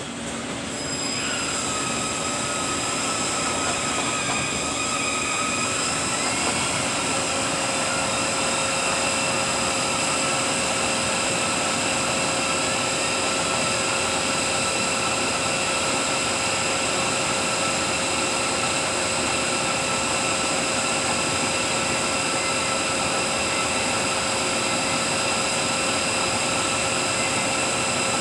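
Rebuilt truck gearbox spinning on a dyno test stand: a steady mechanical whine with several held tones over a hiss. It comes up to speed in the first couple of seconds, and a lower tone joins about seven seconds in.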